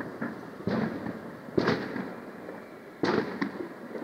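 Aerial firework shells bursting: three loud bangs, about two-thirds of a second, a second and a half and three seconds in, the middle one the loudest, each trailing off in a rumble, with a smaller bang just after the third.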